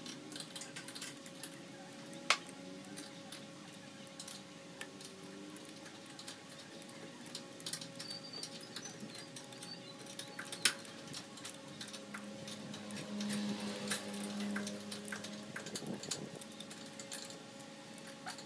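Scattered light clicks and clanks of hands working around an engine's cooling fan and radiator, with a few sharper knocks and a steady faint hum behind; a low hum swells for a few seconds past the middle.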